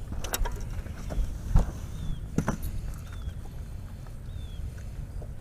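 Irregular knocks and clatter in a fishing boat, the loudest thump about a second and a half in, over a low steady rumble. A bird's short falling chirp repeats about once a second through the second half.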